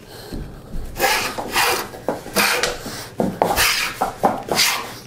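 Hand plane shaving a thin wooden strip in quick repeated passes, a rasping stroke of blade on wood about once or twice a second, with light knocks as the plane is brought back between strokes.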